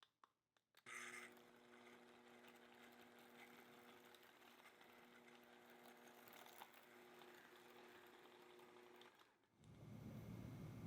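Electric hand mixer running at a steady speed for about eight seconds, beating cream cheese cream, then switching off. A few light clicks come just before it starts.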